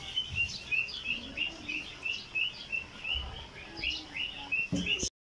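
A bird chirping over and over: short, high chirps repeated about three times a second.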